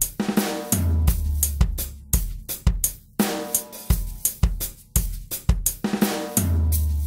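Background music with a steady drum-kit beat and held low bass notes.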